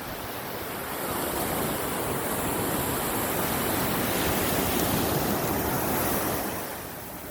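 Surf waves breaking and washing up the shore, swelling through the middle and easing off near the end, with wind buffeting the microphone.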